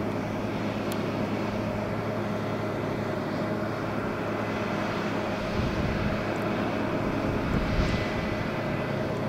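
A distant engine drone, steady in pitch, with a constant low hum and a slightly louder low rumble between about five and eight seconds in.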